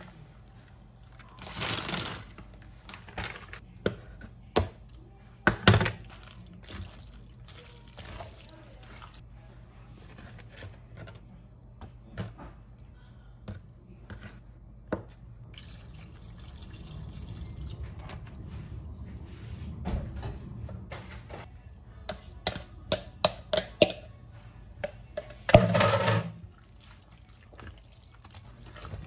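Cooked macaroni being mixed in a plastic mixing bowl with a spoon and by hand: scattered clicks and knocks of the spoon against the bowl, cheese tipped in, and a liquid of beaten egg and milk poured over the pasta. A louder cluster of knocks comes near the end.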